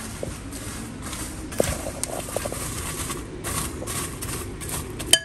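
Popped popcorn rustling and crunching in a bowl as a hand tosses it in irregular strokes, with a sharp click near the end.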